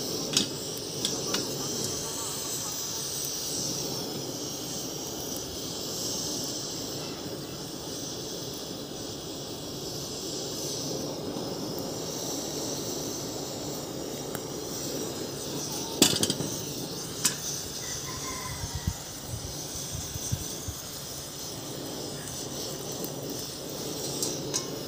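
Steady low rush and hiss of an LPG gas burner flame singeing a plucked chicken, with a high steady buzz above it. Two sharp knocks stand out a little past the middle.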